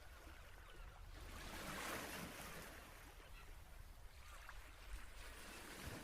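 Faint ocean waves washing on a shore: a steady hiss of surf that swells around two seconds in and then eases off.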